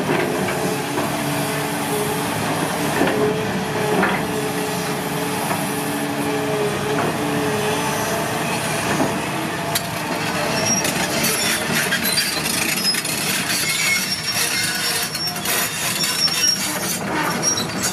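CAT 320D2 excavator working at land clearing: a steady engine and hydraulic drone with several held whining tones. From about ten seconds in, dense crackling and snapping of wood and brush is added.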